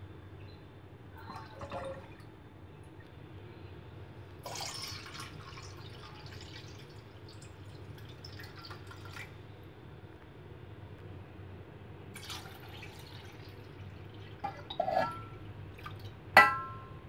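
Liquid from an opened coconut-milk can poured and splashing into a saucepan in spells. Near the end come a few metallic clinks with a brief ring, the last one loudest, as the can knocks against the pot.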